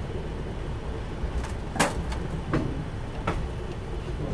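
Passenger train rolling out of a station, heard from an open coach door: a steady low rumble of wheels on track, with three sharp clacks over rail joints about three-quarters of a second apart, the first the loudest.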